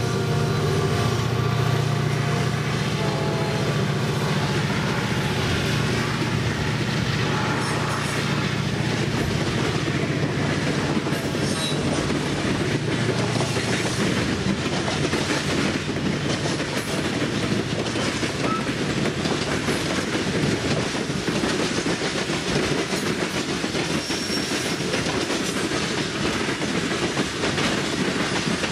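A diesel freight train passes close by. For the first few seconds the locomotives' engines are heard running, fading as they move away. After that comes the steady rumble and clickety-clack of a long string of boxcars and hopper wagons rolling over the rails.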